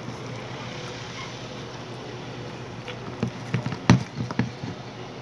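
Slime mixture being stirred by hand in a bowl, with a quick run of sharp knocks and taps from the stirring utensil against the bowl about three seconds in, the loudest near four seconds. A steady low hum lies underneath.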